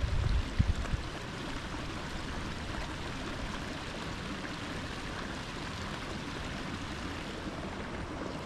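Steady rush of flowing water, with a low rumble and a sharp knock in the first second.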